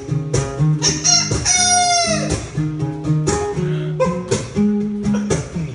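Acoustic guitar strumming chords while a man imitates a chicken into a microphone: one long, high squawk about a second and a half in that falls in pitch at its end, then shorter clucking cries over the strumming.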